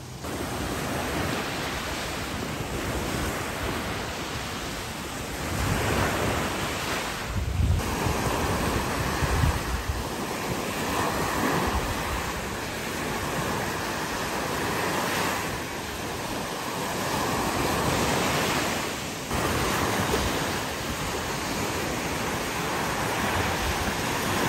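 Small waves breaking and washing up a sandy shore, with wind buffeting the microphone; the noise swells and eases every few seconds as the waves come in.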